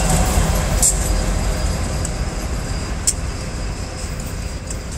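Paducah & Louisville Railway diesel locomotives of a coal train rolling past, a deep engine and wheel rumble that slowly fades as they move away. Two sharp clicks sound, about a second in and about three seconds in.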